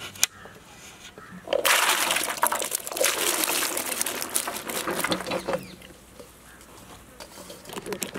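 Chopped bottle gourd pieces dropping and splashing into a steel bowl of water, from about a second and a half in to nearly six seconds, then starting again near the end.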